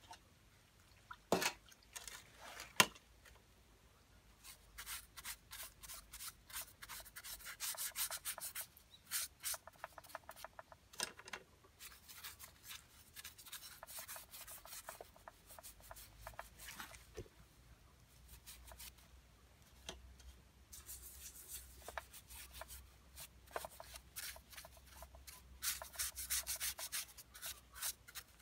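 Stiff-bristled brush scrubbing dirt off the plastic housing and starter cover of a Stihl MS170C chainsaw in runs of quick, scratchy strokes. Two sharp knocks come about a second and a half apart near the start.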